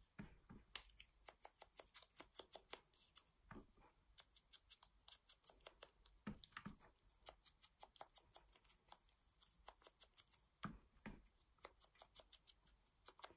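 Faint, quick ticks and scratches of a foam ink blending tool being dabbed and swiped around the edges of die-cut paper flowers, with the light paper pieces handled between strokes.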